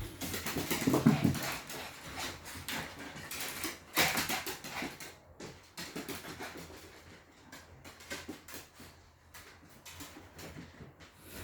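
Dogs moving about, with scuffling and many short clicks; the loudest bursts come about a second in and again about four seconds in.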